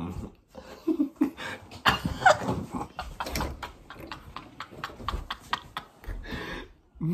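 A man laughing hard in a run of quick breathy bursts, about four a second.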